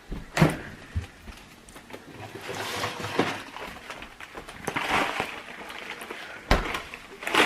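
Kitchen handling noises: a few sharp knocks and clatters, with two spells of rustling in between, as food is got out to make mozzarella sticks.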